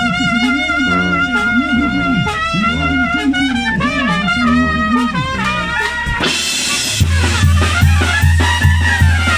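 Tamborazo brass band playing live: trumpets and clarinets hold a wavering melody over a sousaphone bass line. About six seconds in a cymbal crash brings in the tambora bass drum with a steady beat.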